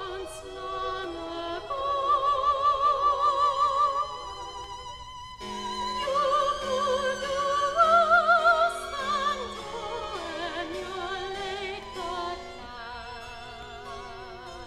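Soprano singing a classical art song with wide vibrato over a small chamber ensemble of strings and harpsichord. A high note is held from about two to four seconds in, and the accompaniment plays short repeated low notes under the voice in the middle.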